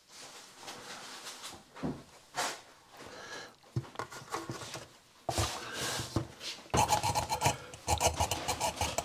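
Scraping and rubbing of hand work on a wall socket, a screwdriver driving the faceplate's fixing screws; the sounds get louder and busier in the last few seconds.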